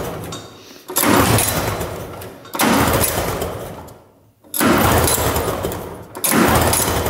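A 400cc two-stroke twin is turned over by hand with its pull starter about five times in a row, roughly one pull every second and a half. Each pull is a quick whirring spin of the crankshaft and flywheel fan that starts loud and runs down. The engine spins freely and does not fire, because both spark plugs are out and laid on the cylinder head for a spark check.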